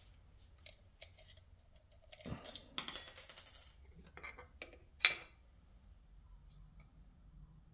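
Small metallic clicks and scrapes as the compressor cover is worked off a small turbocharger by hand, with a sharp metal clink about five seconds in.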